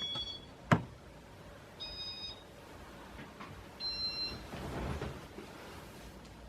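Three short electronic beeps about two seconds apart, each a little different in pitch, from the 1985 Casablanca Four Seasons fan's Inteli-Touch control, with a sharp click under a second in.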